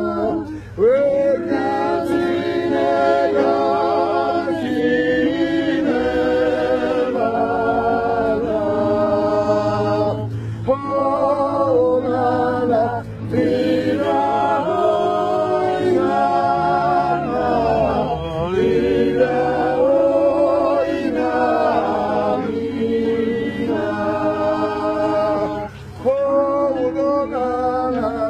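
A cappella choir singing a Mingrelian folk song, in long held phrases broken by short pauses.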